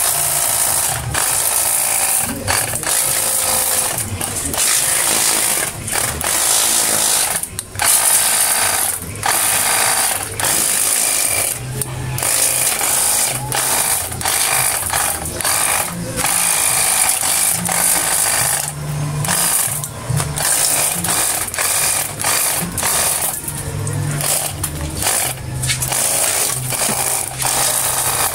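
A 24-volt battery-powered high-pressure washer running, its small pump motor whirring under a steady hiss of water spray striking a motor scooter, with many brief breaks in the spray.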